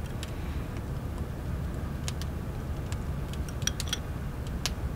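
Light clinks of a ceramic spoon against a celadon medicine bowl, a few short ticks around the middle and a cluster near the end, over a low steady hum.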